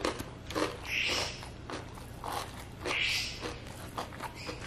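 Close-miked chewing and wet mouth sounds of a man eating rice and rendang by hand, with many small clicks and two short hissing sounds about two seconds apart.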